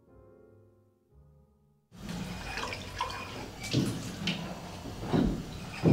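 A soft musical tail fades out in the first second or so. About two seconds in, bar clean-up sounds start: a steady hiss with several sharp clinks and knocks of glassware being cleared.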